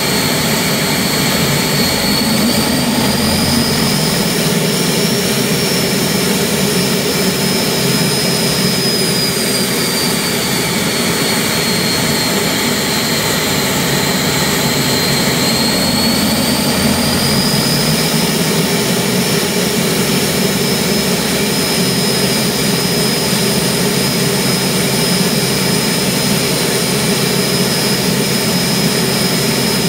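Turbomeca gas-turbine engine running on a ground-run stand: a steady loud rush with a high turbine whine that drifts slowly up in pitch, sinks, and rises again.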